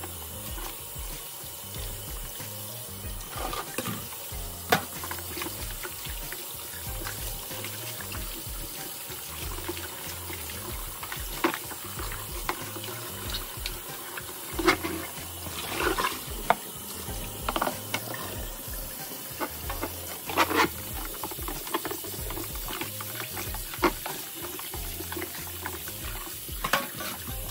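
Kitchen faucet running steadily into a tub of water in a stainless steel sink while raw pork ribs are rubbed and sloshed by hand, with occasional splashes and knocks.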